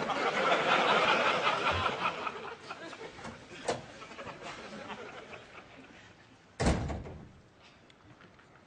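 Audience laughter fading out, then a click from the door latch and a wooden flat door being shut with a single loud thud.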